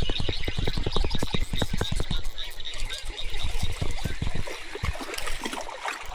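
A quick, irregular run of close knocks and rustles, thickest in the first few seconds and thinning toward the end, over a steady high-pitched outdoor chorus.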